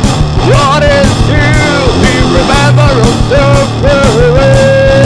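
Sludge/heavy metal band recording: drums, bass and guitars playing a steady heavy groove, with a lead line over them that bends up and down in pitch and settles into a long held note near the end.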